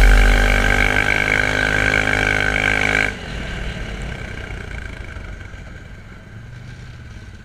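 Quad (ATV) engine running at a steady speed, then dropping suddenly about three seconds in to a much quieter, low running sound.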